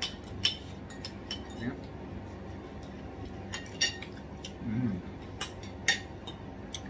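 Metal cutlery clinking against plates and bowls while eating, in scattered single clinks and a quick pair of them. A brief murmured voice sounds a little before the fifth second.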